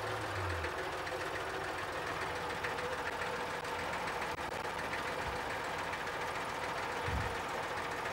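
Small old red tractor's diesel engine running steadily as it drives along a road.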